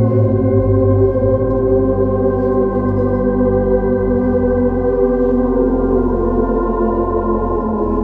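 Free-skate program music played over the arena's loudspeakers: slow, sustained chords that shift about two-thirds of the way through.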